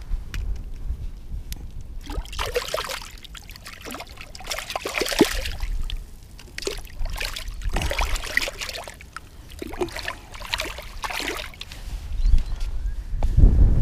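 Shallow water splashing and sloshing against concrete steps in irregular bursts, with a low rumble at the start and again near the end.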